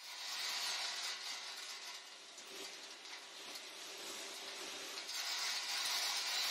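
Pet food production line running, with dry kibble pellets pouring onto a heap: a steady noisy hiss with faint machine tones under it, easing off in the middle and swelling again near the end.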